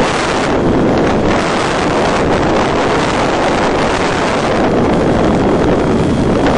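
Wind buffeting the onboard microphone of a gliding FPV model plane, a steady rushing noise with no motor sound, as the motor draws almost no current.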